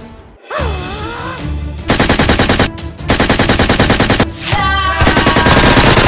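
Dubbed automatic-gunfire sound effect laid over Nerf blasters: rapid machine-gun fire in three loud bursts, the last one running on to the end, over background music.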